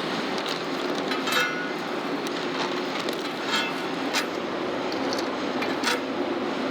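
Steady factory machinery hum, with steel parts clinking against each other about five times, each clink ringing briefly.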